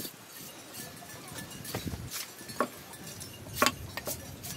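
Large knife chopping raw pork on a round wooden chopping block: several irregular knocks of the blade on wood, the loudest about three and a half seconds in.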